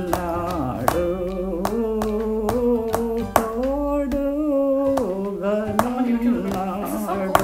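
Elderly woman singing a slow song, holding long notes, with sharp taps of her hands on the tabletop about three times a second, keeping time.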